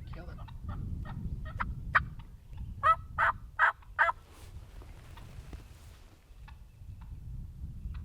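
Wild turkey gobbling: a rattling run of quick notes that builds to its loudest about three to four seconds in.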